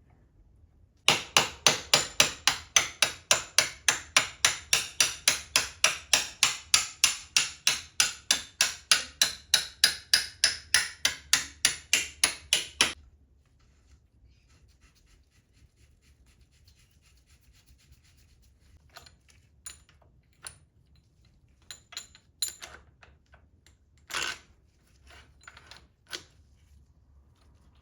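A fast run of evenly spaced sharp strikes, about three a second, that stops abruptly after about twelve seconds. A handful of scattered, quieter knocks and clicks follow.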